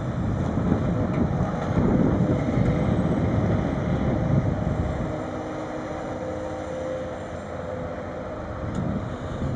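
Sennebogen 870 M material handler's engine and hydraulics running as the empty grapple lifts and the machine slews, with wind buffeting the microphone for the first half. About five seconds in the rumble drops and the machine runs steadier, with a faint held whine.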